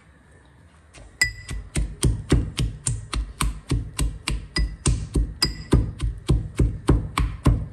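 Boiled green peas being pounded with a masher in a small steel cup. The knocks start about a second in and come steadily, about three to four a second, and some of them make the metal cup ring.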